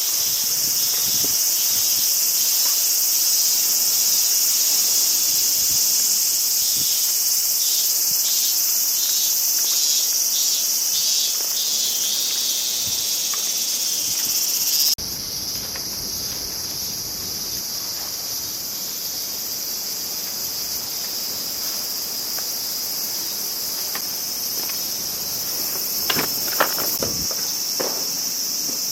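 Dense, steady, high-pitched chorus of crickets and other summer insects, with one pulsing call repeating about twice a second for a few seconds. About halfway through the chorus drops suddenly to a quieter, thinner drone, and a few short knocks sound near the end.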